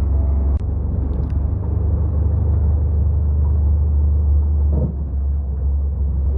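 Steady low rumble of a running diesel engine, with a short click about half a second in.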